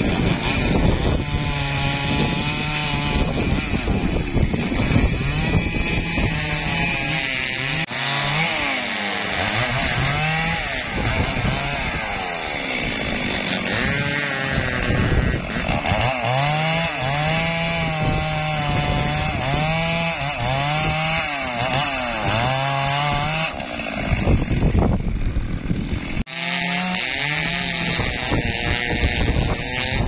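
Two-stroke chainsaw cutting up a felled teak tree, its engine revving up and down over and over as the chain bites into the wood and frees.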